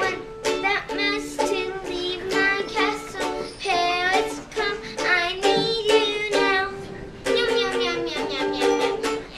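A girl singing a song with vibrato on the held notes, over an instrumental backing of repeated plucked or strummed chords.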